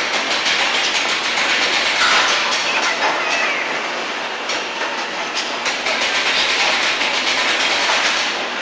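A Pretzel dark ride car rolling along its floor track: a steady rolling noise from its wheels and guide, with a few faint clicks.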